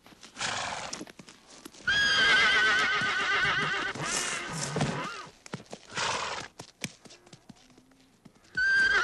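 Wild pony whinnying: a long, shrill, quavering neigh starting about two seconds in and lasting about three seconds, then another beginning near the end. Scattered hoof clatter comes between the calls.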